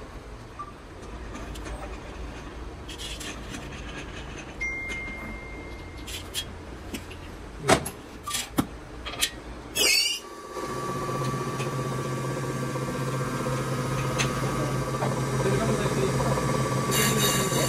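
Metal parts clack a few times as they are set down on the steel table of a rotary surface grinder. Then the grinder starts and runs with a steady hum and whine. Near the end a high hiss comes in as the wheel begins grinding the face of the excavator swing motor's cylinder block.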